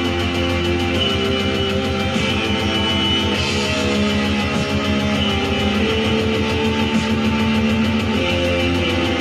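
Symphonic dark metal music: distorted electric guitars over a fast, steady pulse in the low end, with long held notes stepping slowly through a melody above.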